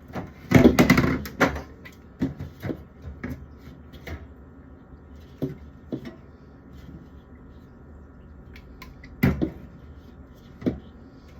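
Drink bottles and cans clunking and knocking as they are handled and set onto a fridge shelf, with a loud cluster of knocks about a second in, lighter taps through the middle and another couple of loud knocks near the end.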